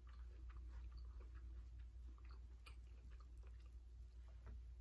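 Faint close-up chewing with scattered soft mouth clicks, over a low steady room hum.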